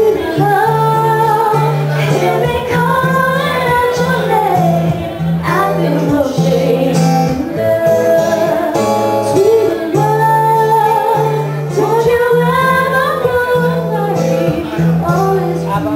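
A woman singing a slow song live, with guitar accompaniment and a steady, repeating bass line underneath.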